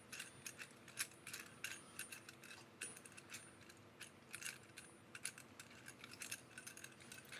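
Faint, irregular small clicks and clinks of hard plastic and metal as a magnifying lamp's mounting bracket is twisted and worked by hand against its base, its joint a little tight.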